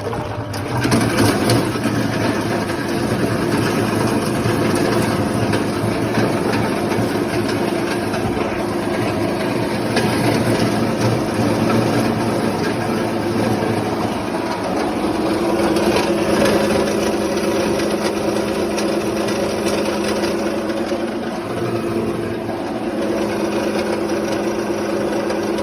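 Grinder crusher machine running with a steady mechanical drone that swells about a second in and then holds, its tone shifting slightly around the middle.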